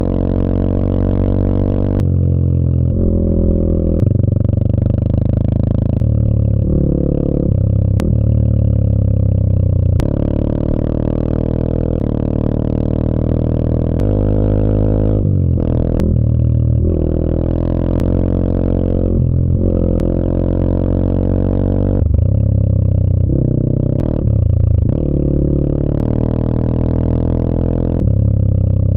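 Background electronic music led by a low, droning bass line whose notes change in steps, with a faint regular beat about every two seconds.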